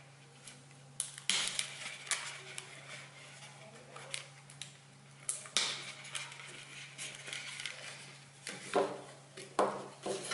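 Corrugated cardboard of a Google Cardboard viewer being folded and handled: irregular scrapes, rustles and crinkles as the flaps are bent and tabs pushed into place, with a few duller knocks near the end as the viewer is set against the wooden table.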